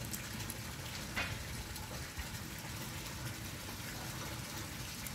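Steady low background hiss, with a faint click about a second in.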